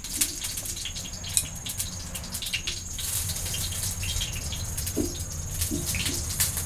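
Water splashing and trickling, with many small clicks and spatters, as at a sink or washing basin.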